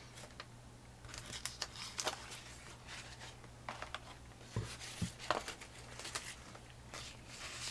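Sheets of old book-page paper being handled and moved across a tabletop: faint, scattered rustles and light taps, with a couple of small knocks about five seconds in.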